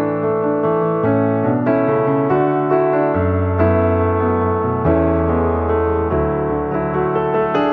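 Background piano music: a slow run of held chords over low bass notes.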